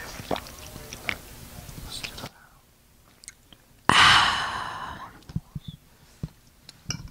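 Close-miked drinking from a plastic water bottle: sips and swallowing with small clicks. About four seconds in comes a sudden loud crinkle of the plastic bottle held against the microphone, which fades over about a second.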